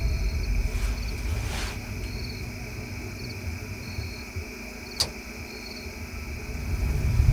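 Crickets chirping in short pulsed bursts about once a second over a steady high insect drone, with low rumble underneath and a single sharp click about five seconds in.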